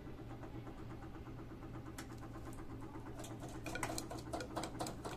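Edesa front-loading washing machine starting to spin a soapy load slowly: a steady motor hum with a fast, even rhythm. From about three seconds in, irregular sharp clicks and crackles join in.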